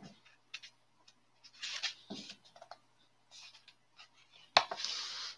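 Quiet scattered clicks and rustles of someone handling a book's pages, with a longer rustle about two seconds in and a sharp click and short hiss near the end.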